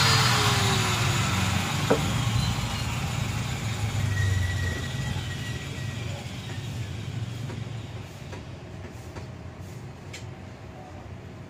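Engine noise with a low hum, loud at first and fading steadily away over several seconds. A tone falls in pitch near the start, and there is a single sharp click about two seconds in.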